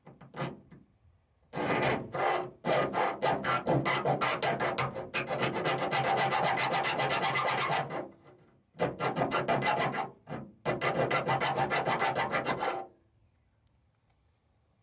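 Hand file rasping on the steel door skin in quick, even strokes, cutting locating-tab slots into the enlarged lock-cylinder hole. The filing starts about a second and a half in, breaks off briefly twice, and stops a couple of seconds before the end.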